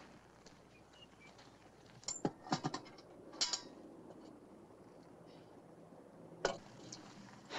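A cluster of sharp metallic clicks and clinks a couple of seconds in, then one single knock near the end, over a faint steady hiss.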